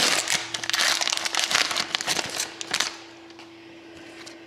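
Crinkling of a hockey card pack's wrapper as it is torn open by hand, stopping about three seconds in.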